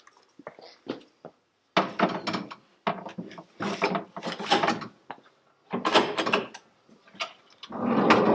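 Metal rescue tools and gear being shifted about in a fire engine's equipment compartment: several bursts of knocks and rattles, the longest one near the end.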